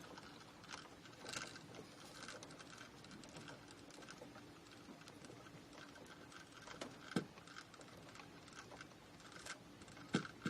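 Faint scratching and small clicks of a plastic wire nut being twisted by hand onto electrical wires, with a sharper click about seven seconds in and another near the end.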